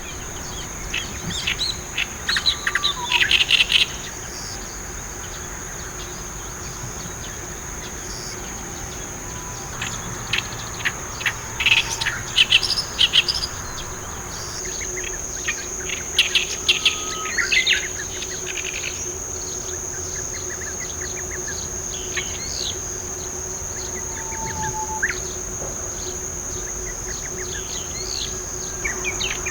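Oriental reed warbler singing its harsh, chattering song in several loud bursts, over a steady high-pitched insect buzz.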